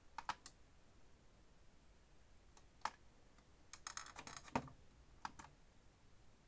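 Control panel of an Indesit WIN102 washing machine being worked by hand: sharp plastic clicks from its buttons and selector. There are two clicks at the start, a single one near 3 s, a quick run of clicks around 4 s, and two more after 5 s.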